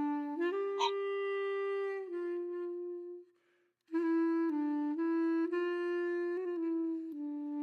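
Background music: a solo wind instrument playing a slow melody of long held notes that step from pitch to pitch, breaking off for about half a second a little after three seconds in.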